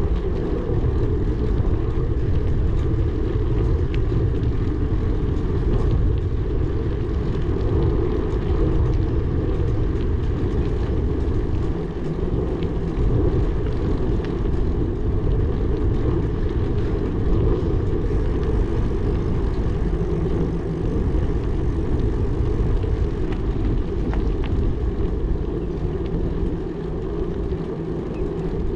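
A steady low rumble with a fainter hiss above it, level throughout, with no separate events.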